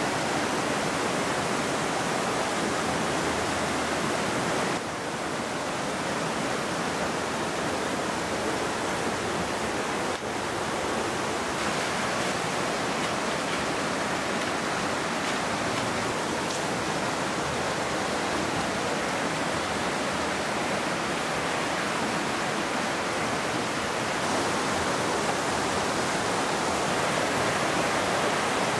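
Fast mountain river rushing over rocks in whitewater, a steady, even roar.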